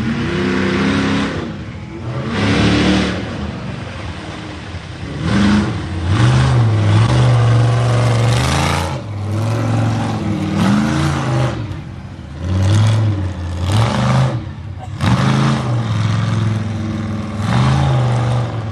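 Mega truck's engine revving hard in repeated bursts, its pitch climbing and falling with each stab of the throttle, in loud surges.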